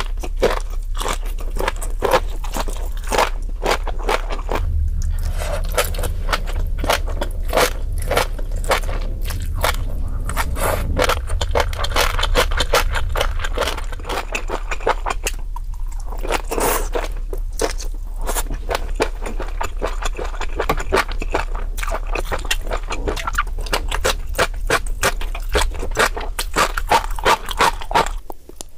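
Close-miked chewing of boneless chicken feet: rapid, irregular crunchy and crackly mouth clicks with wet, sticky smacking, running steadily over a low hum.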